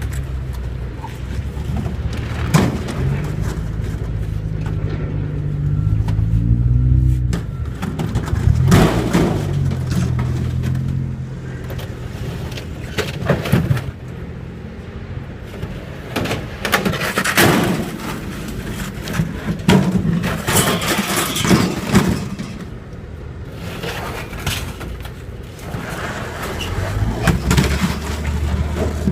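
A truck's engine running, its pitch rising and falling a few seconds in, then a long stretch of clunks and rattles over a weaker engine hum, with the steady engine note returning near the end.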